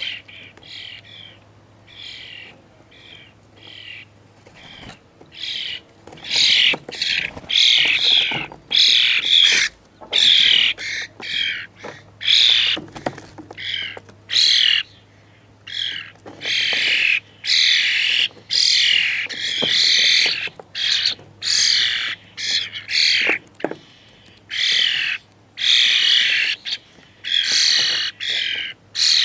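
Fledgling European starlings squawking over and over, begging to be fed by an adult. The calls come about once a second, each short, faint at first and growing loud about six seconds in.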